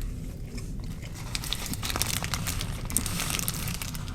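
Food wrapper crinkling and rustling as it is handled, with many small crackles, busiest in the middle.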